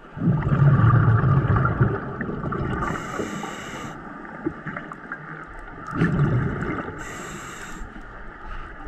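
Scuba diver breathing through a regulator underwater: a rumbling gush of exhaled bubbles, then the short hiss of an inhalation through the regulator, in a slow cycle that repeats twice, with another exhalation starting near the end.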